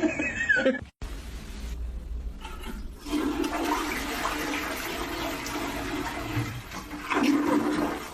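Rushing, gurgling water, rising about three seconds in and loudest near the end, after a short sound that cuts off about a second in.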